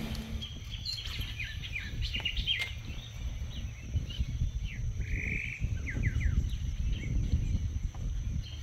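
Several birds chirping and calling: many short, downward-sliding notes, with one longer, brighter call about five seconds in, over a low, uneven rumble.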